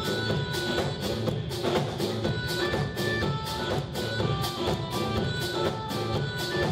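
Live band playing a steady groove: congas and other hand drums beat a continuous rhythm under electric guitar and sustained pitched notes.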